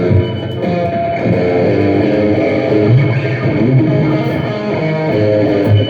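Guitar playing ringing chords with no singing, in the closing instrumental bars of a song performed live.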